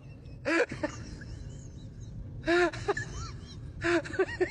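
Laughing sound effect: three short breathy, gasping laugh bursts about one and a half to two seconds apart, each ending in a brief rising-and-falling voiced whoop.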